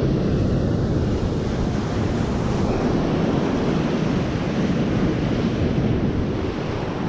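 Steady wind buffeting the microphone over the wash of surf breaking on a beach.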